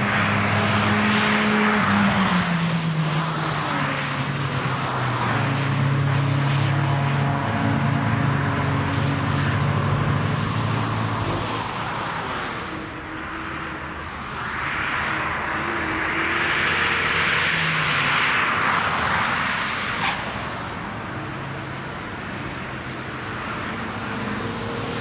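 Cars driven at speed passing on a race track, engines running hard. One engine's pitch drops as it goes by in the first few seconds, and a second, rushing pass swells from about 15 s and cuts off suddenly about 20 s in.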